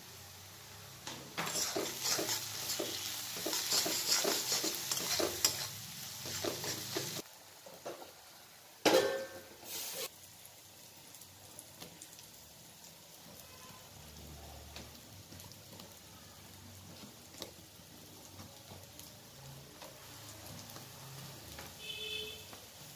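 Steel spatula stirring and scraping sliced onions and spices around a metal kadai, the onions sizzling in hot oil, for about six seconds. A sharp knock follows a couple of seconds later and another a second after that, then only faint small sounds.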